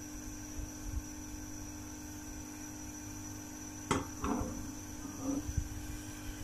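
A steady electrical hum, with a steel ladle clicking sharply against the pan about four seconds in, then a few softer knocks and scrapes as it is moved through the hot milk.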